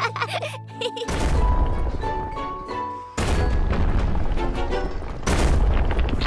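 A short musical tail, then from about a second in, deep rumbling booms from a cartoon building being wrecked and toppling. The booms come in three surges, and musical notes play over the first.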